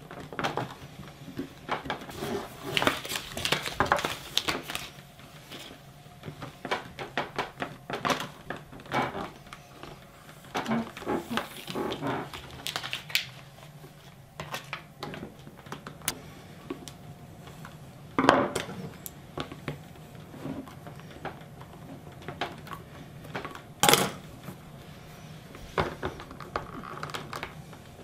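Irregular plastic clicks, rattles and knocks of hands pressing a power cord into a plastic cable floor ramp and shifting the ramp on a table, with a couple of louder knocks in the second half.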